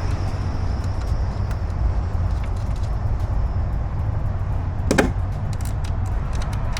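Small clicks of parts being handled inside a car door, with one sharp knock about five seconds in, over a steady low rumble.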